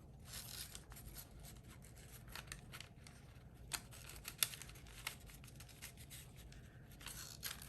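Faint rustling of paper and ribbon as a ribbon is threaded through the hole of a paper tag, with scattered small clicks and two sharper ticks around the middle.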